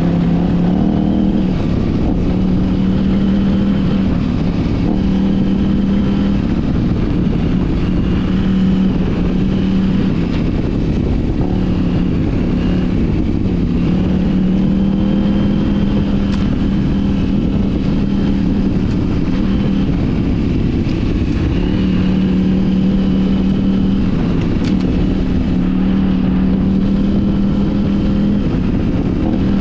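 KTM 790 Adventure R's parallel-twin engine pulling steadily on a dirt trail. Its note steps up and down every few seconds as the throttle opens and closes, over a constant rush of wind and trail noise.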